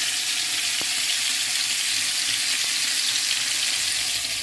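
Chicken wings frying in hot oil in an uncovered pan: a steady, loud sizzle with a couple of faint pops from spattering oil.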